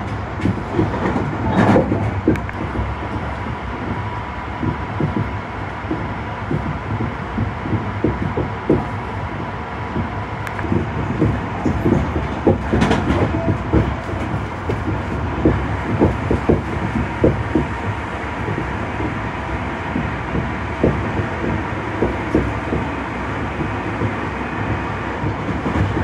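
Tobu 50090-series electric train running, heard from on board: a continuous rumble of wheels on rail with irregular clacks over rail joints and a faint steady whine.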